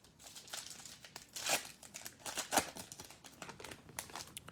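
Plastic trading-card pack wrapper crinkling and tearing as it is ripped open and handled, with a few sharper rips.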